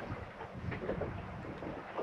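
Wind on the microphone aboard a small boat at anchor, with a few soft knocks about halfway through.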